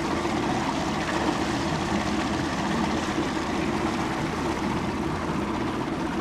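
A small boat's motor running steadily underway: an even, low engine drone mixed with the rush of water.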